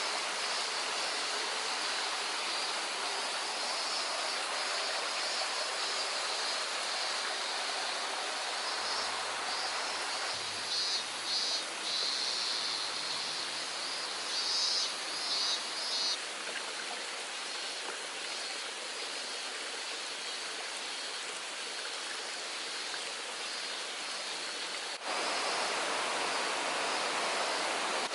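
Steady rush of falling water at a waterfall, with short high chirping calls over it in the middle stretch. The water sound shifts slightly and suddenly a few seconds before the end.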